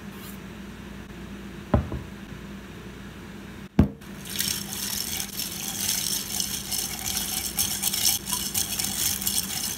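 A straw stirring ice cubes in a tall glass of Thai iced tea: a busy crackle of ice clinking against the glass and sloshing liquid. Before it, a light knock near two seconds in and a louder knock about four seconds in, just as the stirring starts.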